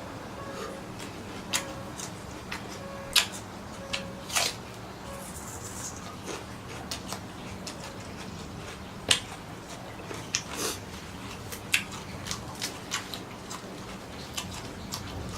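Irregular sharp clicks and snaps, about twenty of them scattered unevenly, over a steady low hum.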